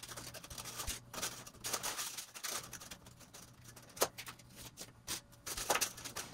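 Hands handling a plastic HO scale curved track section on white foam incline risers, pinning it down: irregular small clicks, taps and rubbing, with a sharper click about four seconds in.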